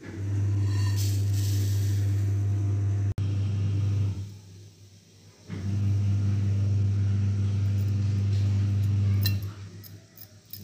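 Steady low electrical hum from kitchen equipment, broken twice by short, much quieter stretches.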